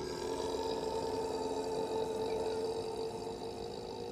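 A mastiff howling: one long, steady, low howl held on nearly a single pitch, fading slightly toward the end.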